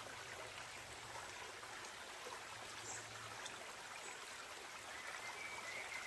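Faint, steady rushing of a shallow creek flowing over stones.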